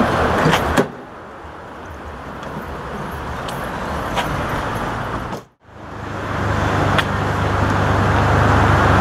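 Street traffic noise from car engines on a city street. The level falls abruptly about a second in and drops out briefly just past halfway; after that a steady low engine hum grows louder.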